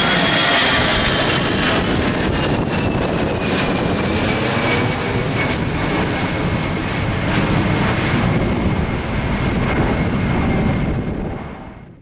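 Airbus A319 twin-engine jet climbing out just after takeoff and passing overhead: loud jet engine noise with a high whine that slides down in pitch as it goes by and moves away. The sound fades out near the end.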